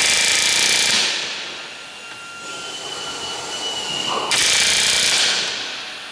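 Pneumatic rivet gun hammering solid aluminium rivets into an Avro Lancaster wing rib. Two bursts of rapid hammering about four seconds apart, each about a second long and fading away afterwards.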